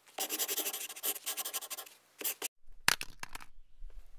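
Pen scratching quickly across paper in rapid strokes for about two seconds, then a few short separate scratches and ticks, as a handwriting sound effect.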